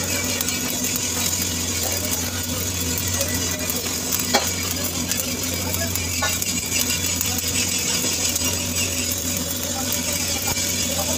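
Stick (shielded metal arc) welding on carbon steel pipe: the electrode arc gives a steady crackling sizzle while the first layer is laid. A sharp tick about four seconds in.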